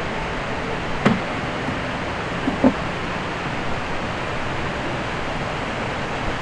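Steady rushing of a waterfall, with a sharp click about a second in and two quick knocks a little later.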